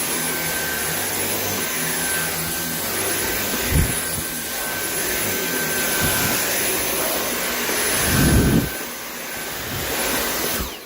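A Dyson cordless vacuum motor, running on a Ryobi 40V battery through an adapter, runs steadily while vacuuming, with a thin high whine over its rushing air. There are two brief louder low rumbles about four and eight seconds in, and the vacuum is switched off at the very end.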